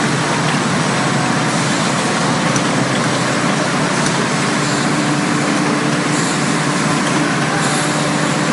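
Automatic facial tissue packing machine running: a steady, loud mechanical din with a faint steady tone underneath and occasional light ticks.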